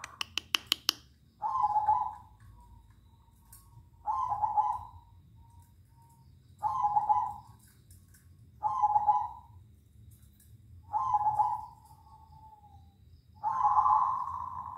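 Zebra doves (perkutut) cooing back and forth, a short trilled coo about every two to two and a half seconds. A quick run of sharp clicks comes in the first second.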